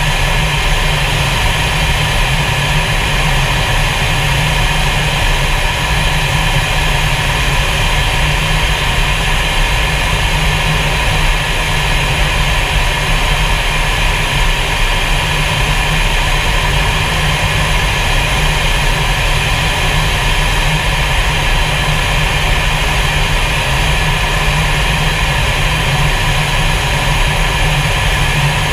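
Fighter jet cockpit noise in flight: engine and rushing air, loud and steady, with a deep rumble under a hiss.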